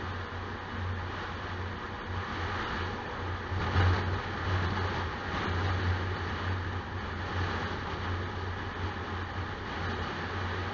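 A car driving on an open road, with a steady low engine and tyre drone. The noise swells briefly about four seconds in and again around six seconds as oncoming vehicles pass.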